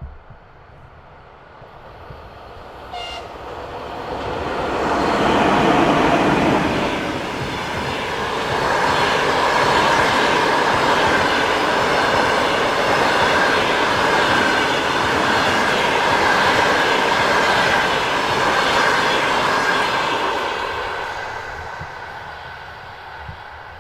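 A passenger train approaching, passing close by and drawing away. It grows louder over the first several seconds, stays loud with steady rolling rail noise and a sustained high ringing tone through the middle, then fades near the end. A short sharp tone sounds about three seconds in.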